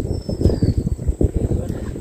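Wind buffeting the microphone outdoors: a loud, irregular low rumble. A faint falling whistle sounds briefly near the start.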